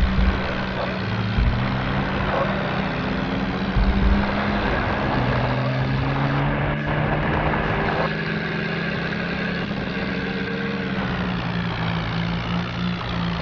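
Off-road vehicle engine running steadily, with a few short low thumps in the first four seconds.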